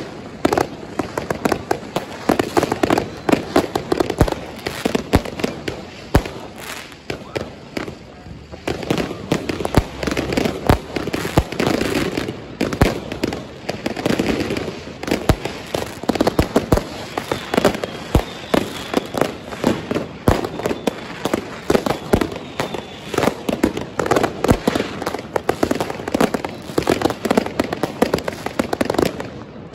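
Fireworks and firecrackers going off nonstop: many overlapping bangs and crackles, easing briefly about eight seconds in.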